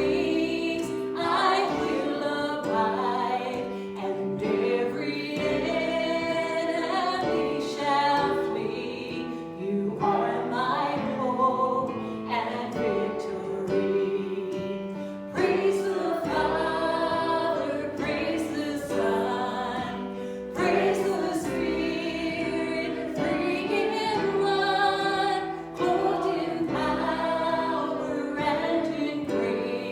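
A worship song in a church service: voices singing a melody over long held instrumental chords.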